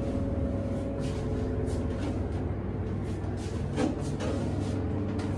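Schindler HXPress hydraulic elevator in upward travel, heard from inside the cab: a steady hum with faint rattles, and one short knock about four seconds in.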